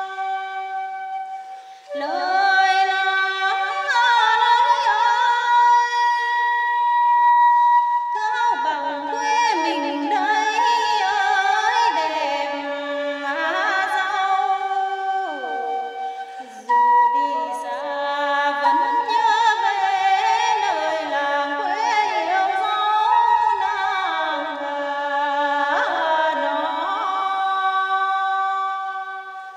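Tày lượn folk song: a woman's voice sings a wavering, ornamented melody in long phrases over steady, sustained instrumental accompaniment, with brief breaks between phrases about two seconds in and about halfway through.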